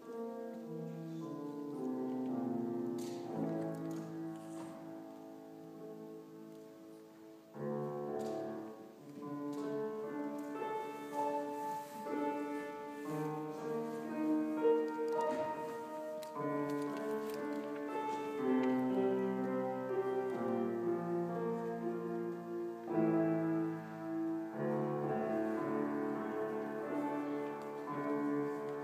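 Solo grand piano played by a child, a classical-style piece of melody over chords. It fades to a softer passage a few seconds in, then comes back louder with a fresh chord about seven and a half seconds in.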